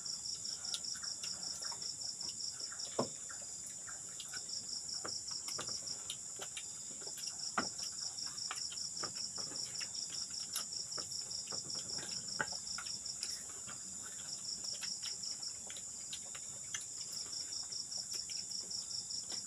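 Night insects calling: a steady high-pitched drone with a rapid pulsed trill, about five pulses a second, that stops and starts several times. Scattered light clicks and knocks sound over it.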